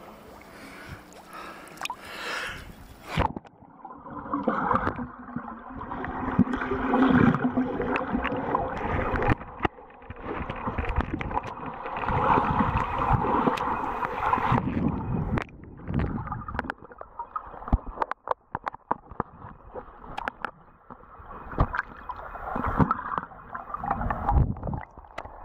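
Water heard through a camera held under the surface: muffled gurgling and sloshing from a swimmer's movements, with scattered sharp knocks. About three seconds in, the sound turns muffled and dull as the camera goes under.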